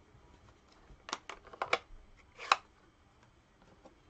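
A handful of light plastic clicks and taps as a stamp ink pad is handled, the loudest about two and a half seconds in.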